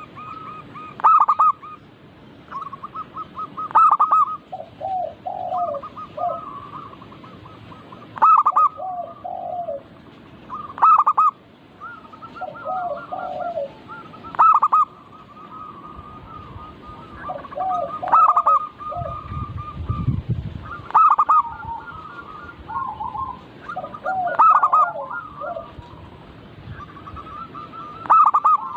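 Zebra doves (perkutut) cooing over and over in repeated phrases. Each phrase runs a quick series of lower trilled notes and ends in a louder coo, about every three seconds.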